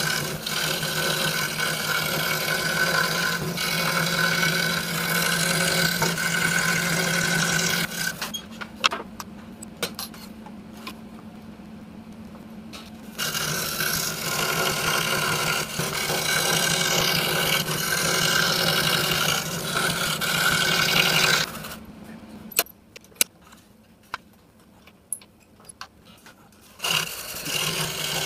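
26-inch RBI Hawk scroll saw with a 5-0 skip-tooth blade cutting Baltic birch plywood: a steady cutting noise over the motor hum that starts and stops. It runs for about eight seconds, drops to a quieter stretch with a few clicks, cuts again for about eight seconds, goes quiet with scattered clicks, and starts cutting again near the end.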